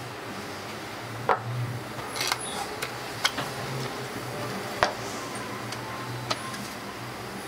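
A handful of sharp clicks and light knocks at irregular intervals, the loudest about a second in and near the middle, as plywood frame parts, wooden rollers and a steel shaft of a homemade belt sander are handled and fitted together. A steady low hum lies underneath.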